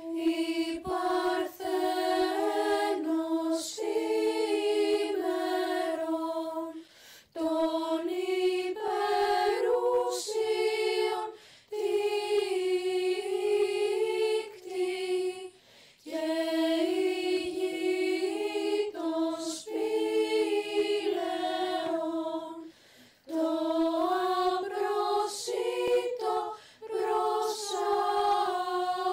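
Unaccompanied vocal music: a slow, melodic chant-like song sung in long phrases, with brief breaths or pauses between them.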